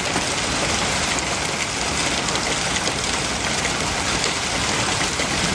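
Hail storm with heavy rain: a dense, steady patter of countless small impacts.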